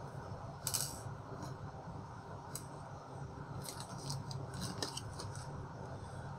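Small metal screws clicking and clinking as they are handled and set down on a tabletop: a few separate clicks, then a quick cluster of them in the second half.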